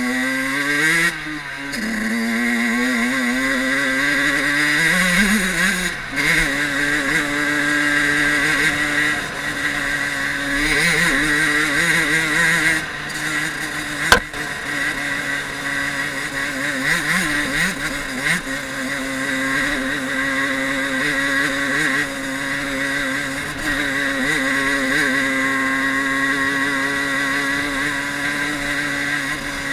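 Fantic 50 Caballero Regolarità's small two-stroke engine under way on a dirt trail, its pitch swinging up and down as the throttle opens and closes through the first few seconds, then holding fairly steady. A single sharp knock about halfway through.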